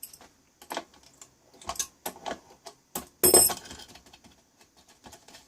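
Scattered clicks and taps of a screwdriver working on small screws in a metal electronics chassis, with one louder ringing metallic clink about three seconds in.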